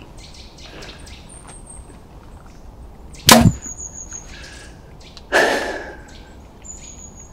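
Compound bow shot from a ground blind: a single sharp crack of the string about three seconds in, then about two seconds later a rushing noise lasting about a second. The archer thinks the arrow went just over the buck, perhaps cutting hair. Faint bird chirps.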